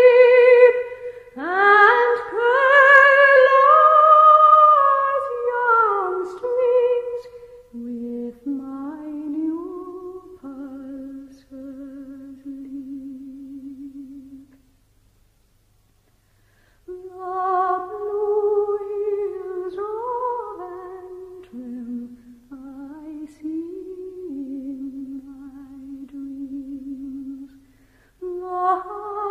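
Unaccompanied solo voice humming a slow, wordless melody with vibrato, high and full at first, then lower and softer, breaking off for about two seconds midway before resuming.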